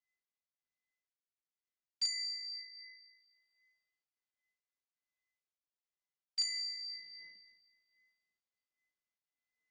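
A small high-pitched metal bell struck twice, about four seconds apart; each strike rings and fades away over about a second.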